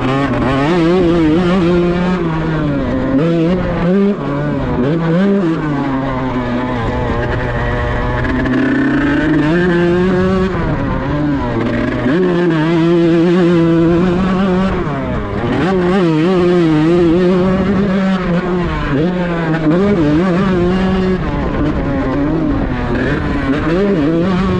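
Kawasaki Ninja grasstrack motorcycle engine revving, its pitch rising and falling again and again as the throttle is worked, with a few stretches held at steady revs.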